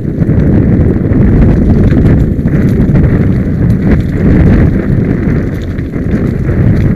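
Mountain bike descending a loose, stony trail: tyres rumbling and clattering over rocks, with a steady stream of small knocks and rattles from the bike.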